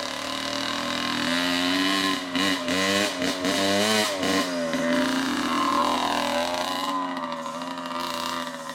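Small dirt bike engine revving as the bike rides up close, its pitch wavering up and down with the throttle, loudest a few seconds in, then settling and easing off as it rides away.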